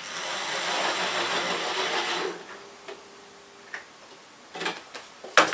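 Small OO gauge model railway tank locomotive running along the track, its little electric motor and wheels buzzing and clattering on the rails. It is loud for about two seconds as it passes close by, then drops to a faint steady hum with a few sharp clicks near the end.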